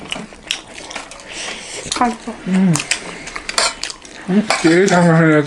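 A spoon clinking and scraping against a metal plate, with scattered short clicks of eating. A person's drawn-out, wavering vocal sound comes about two seconds in and again, louder, near the end.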